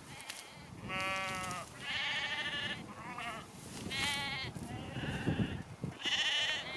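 Sheep bleating: about six bleats one after another, each with a quavering, wavering pitch.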